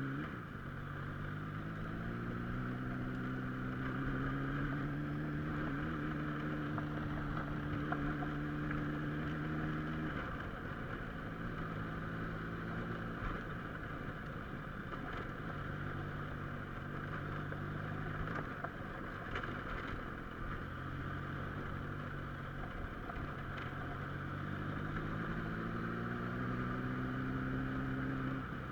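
Car engine and road noise while driving on a rough spit road. The engine climbs in pitch as it accelerates, holds steady for several seconds, then eases off about ten seconds in. It picks up again and rises once more near the end.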